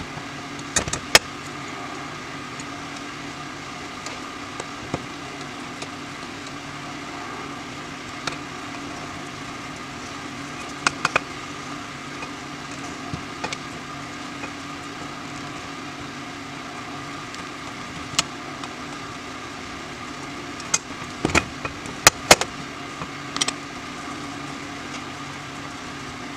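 Occasional sharp clicks and taps of small metal parts and a screwdriver against an aluminium carburetor body as the venturis are fitted, with a cluster of them near the end. A steady hum runs underneath.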